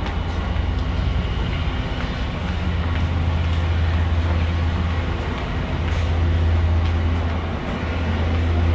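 A steady low mechanical drone under a continuous wash of background noise, dipping briefly twice in the second half.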